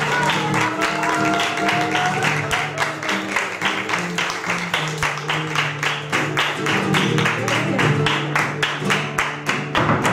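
Flamenco guitar playing under steady rhythmic hand-clapping (palmas), about five sharp claps a second. A voice holds a note in the first couple of seconds.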